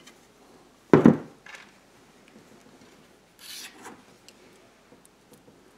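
Hand screwdriver driving screws into a plastic speaker enclosure: faint rubbing and small clicks, with a brief rasping scrape about three and a half seconds in. A short, loud low thump about a second in.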